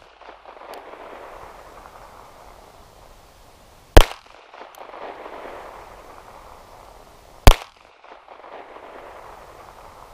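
Two shots from a Rock Island Armory Baby Rock .380 ACP compact pistol, about three and a half seconds apart. Each shot trails off over a couple of seconds.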